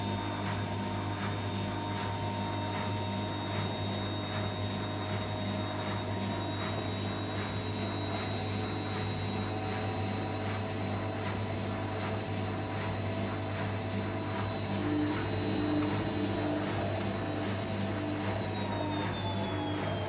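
Empty Beko BKY 2317 B front-loading washing machine on a short spin, its drain pump humming steadily under the drum motor's whine and a regular pulsing. Near the end the motor whine falls in pitch as the drum slows down.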